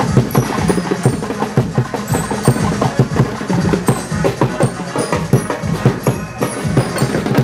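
Percussion music: drums struck in a fast, steady rhythm, several beats a second, with some ringing tones among the strikes.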